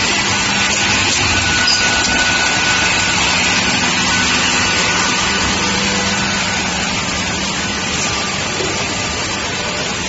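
Double-end edge banding machine running steadily: a continuous machine noise with a steady motor hum underneath.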